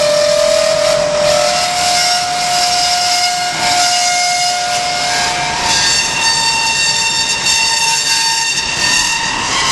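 1998 Hyd-Mech S-25P horizontal band saw blade cutting through metal under coolant: a steady hiss with a whistling whine whose pitch steps up slightly about a second and a half in, then jumps higher with added overtones near six seconds in.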